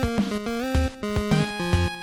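Upbeat intro music in the style of a video game tune, with held notes stepping up and down in pitch over a steady beat.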